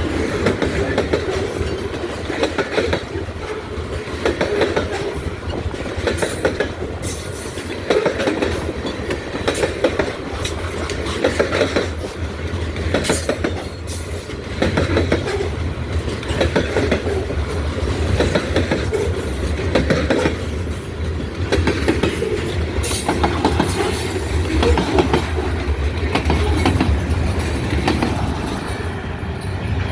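Freight train cars rolling past, their wheels clicking over the rail joints in a steady clickety-clack over a low rumble.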